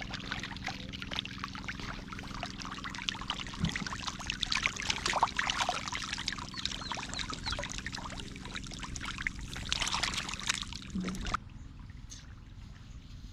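Many catfish thrashing in shallow muddy water, making a dense crackle of splashes and trickling water over a low steady hum. It cuts off abruptly about eleven seconds in, leaving a quieter outdoor background.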